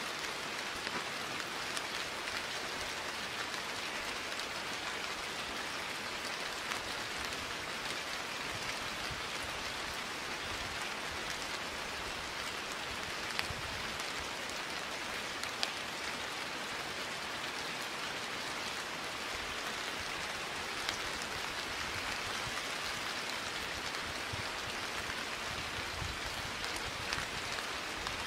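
Steady rainfall: an even hiss of rain with scattered drop ticks, two of them sharper about halfway through.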